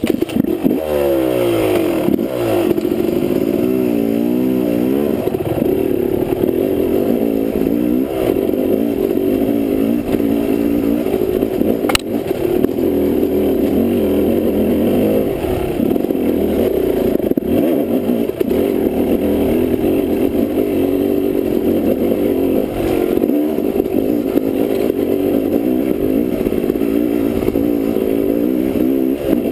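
Yamaha dirt bike engine coming to life and being blipped, its pitch rising and falling several times over the first few seconds. It then pulls steadily under load up a rocky trail, with chassis clatter and a sharp knock about twelve seconds in.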